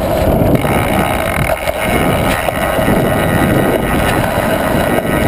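Wind buffeting the microphone and the rumble of mountain bike tyres rolling fast over a concrete and paved track, a steady, loud noise.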